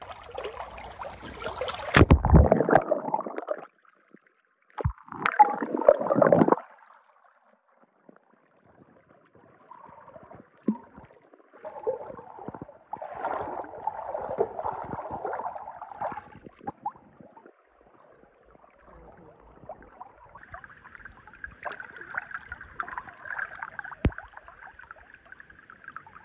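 Water splashing and gurgling in several uneven bursts a few seconds long, with a sharp knock about two seconds in and another near the end.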